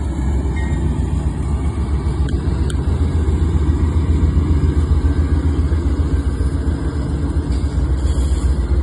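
BNSF diesel locomotive pushing a rail snowplow past at close range: a loud, steady low engine rumble that swells a little about midway as the locomotive draws level.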